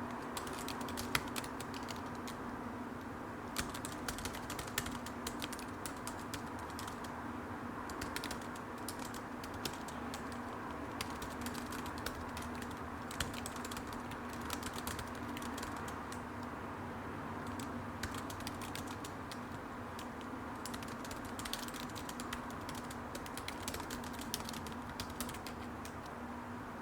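Typing on a computer keyboard: keys clicking in quick runs with short pauses, over a steady low hum.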